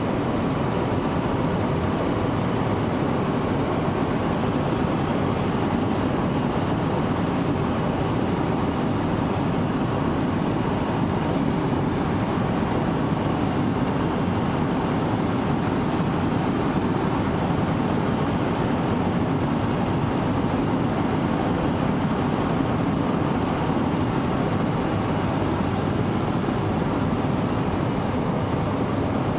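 Helicopter in flight, heard from on board: a steady, unbroken engine and rotor noise.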